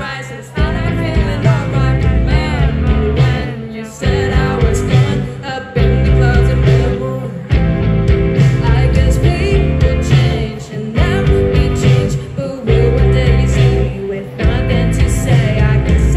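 Live band playing a rock-tinged pop song with a woman singing lead through the stage PA, over electric guitars and drums. The singing comes in phrases, with short breaks between lines.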